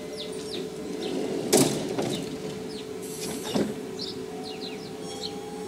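The sliding doors of an Oslo Metro MX3000 train closing: a loud thud about one and a half seconds in and a second one about two seconds later, over a steady hum.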